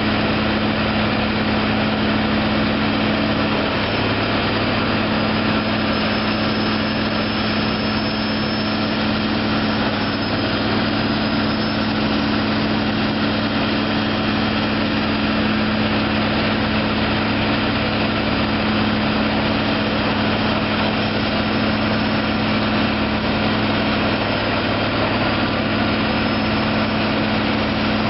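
2005 Peterson 4700 horizontal grinder's diesel engine running steadily at an even speed, with a constant low hum and no change in load.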